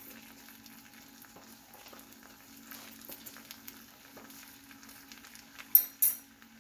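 Char kway teow noodles sizzling faintly in a wok on a gas stove with the heat turned down: a soft hiss with scattered small crackles over a steady low hum. Two sharp clicks come close together near the end.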